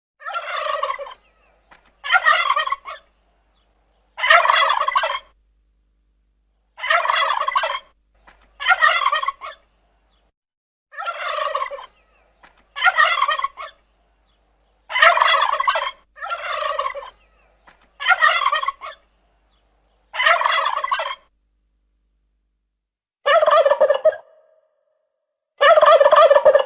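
A turkey gobbling over and over: about a dozen rapid, rattling gobbles, each about a second long, separated by short silent gaps.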